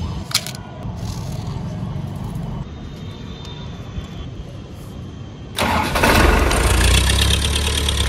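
Tractor engine running with a low, steady rumble, then much louder and rougher for nearly three seconds from about five and a half seconds in.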